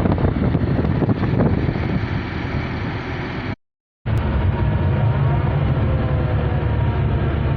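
Excavator's diesel engine running steadily, with wind buffeting the microphone in the first half. The sound cuts out completely for about half a second near the middle, then comes back as a steady low engine hum.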